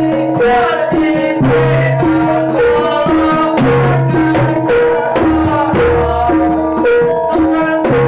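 Jaranan ensemble music played live: hand drums struck in a quick, busy rhythm over tuned gong-chime notes ringing a short repeating figure.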